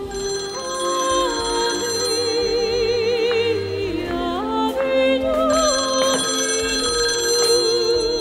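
Soundtrack music: a wavering melody with vibrato and sliding notes over held high ringing tones.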